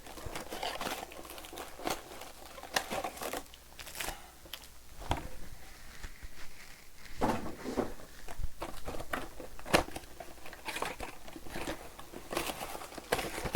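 Trading-card box packaging being opened by hand: irregular crinkling and tearing of wrapping and cardboard, with short rustles and handling clicks.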